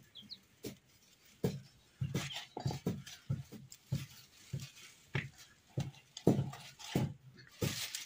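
Dry twigs being snapped by hand for kindling: an irregular run of sharp cracks, about two or three a second, starting about a second and a half in.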